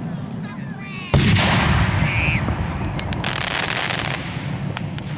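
Fireworks going off: a sudden loud boom about a second in that rings on, then a stretch of crackling and a few sharp pops, over a low steady rumble.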